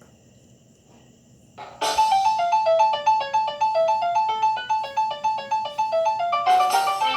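BlackBerry Bold 9000 ringtone: a fast electronic melody of short repeated notes, starting about two seconds in after a near-silent pause. Near the end the next tone starts.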